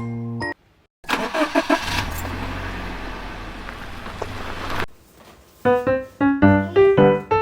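A car engine cranking and catching, then running steadily for about three seconds before cutting off.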